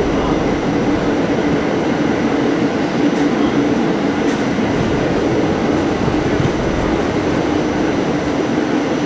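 Staten Island Railway train running, heard from inside the car: a steady rumble of wheels on the rails with a constant low hum.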